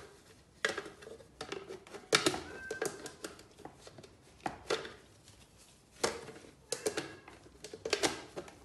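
Scattered sharp clicks and knocks of kitchen items being handled and set down on a counter, some in quick pairs, about a dozen in all.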